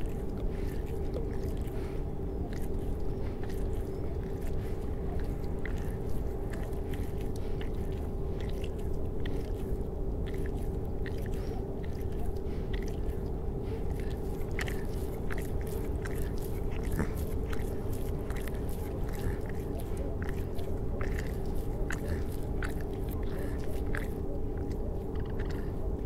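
Designed soundtrack: a steady droning hum holding two tones, with irregular sharp clicks and crackles scattered over it, growing denser after the first third.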